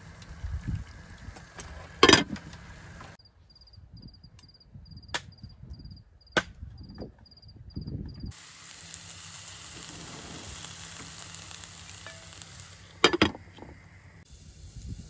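Cooking sounds in short cuts: sharp clinks of a utensil against a pot, and a steady hiss of food cooking. In between is a quieter stretch with a faint, evenly repeating high chirp.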